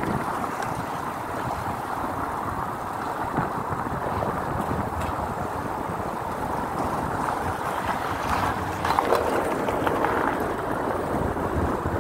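Steady wind rushing over the microphone and road noise from a mountain bike rolling along a paved street.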